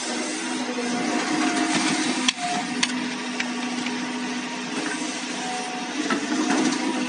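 CAT 320GC hydraulic excavator running steadily, its diesel engine and hydraulics working as the arm and bucket push backfill soil. A few sharp knocks a little over two seconds in.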